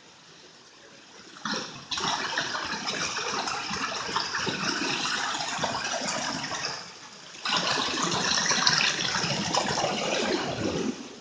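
Stream water rushing and splashing over rocks close to the microphone. It starts suddenly about two seconds in, dips briefly a little past the middle, then returns before fading near the end.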